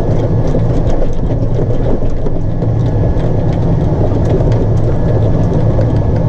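Combine harvester running at work: a steady, loud low drone of engine and machinery, with scattered light ticks over it.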